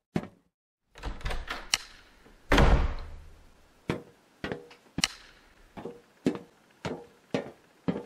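A run of hard knocks and thuds. A quick cluster comes in the first two seconds, then one heavy crash with a low rumble, then single knocks about every half second.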